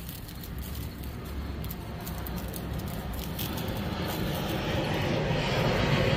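Airplane flying over, its engine drone growing steadily louder and loudest near the end.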